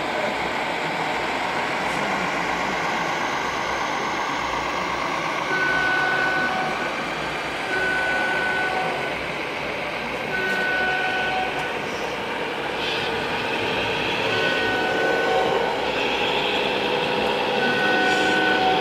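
Electronic warning beeper from a scale RC truck, sounding in slow pulses of about a second each, every two to three seconds from about five seconds in, over steady background noise.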